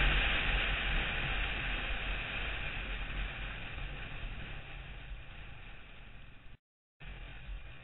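Wind rush and engine noise picked up by a motorcycle-mounted camera while riding, growing steadily quieter as it goes. The sound cuts out completely for about half a second near the end.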